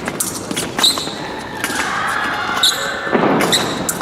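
Épée fencers' footwork on the piste during a bout: a quick run of stamps and footfalls with sharp knocks and brief high squeaks.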